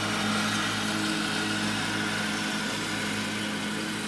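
Car engine idling steadily, a constant low hum heard from inside the cabin.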